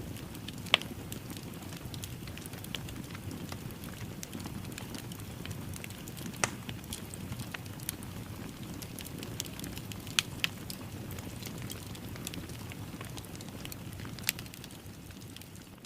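Wood fire crackling in a fireplace: a steady low rush with many small ticks and a few sharp pops.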